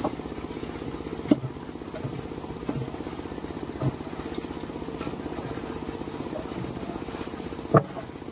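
Single-cylinder 7 hp diesel engine of a mini concrete mixer-lift running steadily with a fast even chugging. Three sharp knocks stand out: about a second in, near the middle and near the end.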